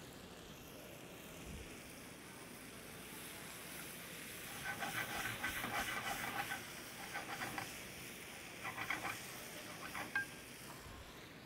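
Peppers, onions and tomatoes sizzling in a hot sauté pan, with a wooden spoon stirring them and scraping and rattling against the pan in several short bursts, from about five seconds in to about ten seconds in.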